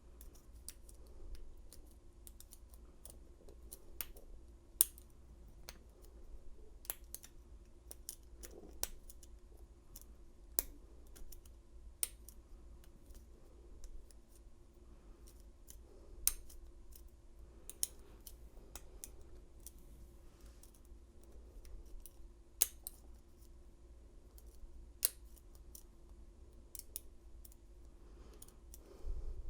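Metal lock pick clicking and scraping against the pin stack inside an old Yale padlock during single pin picking, with the pins moving under tension. Irregular sharp clicks come every second or so over a faint steady hum.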